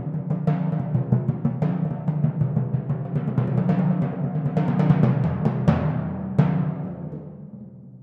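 Four copper-bowled timpani struck with mallets in a fast, dense run of strokes with sharp accents, the drums ringing at low pitch. A last accented stroke about six and a half seconds in rings on and dies away.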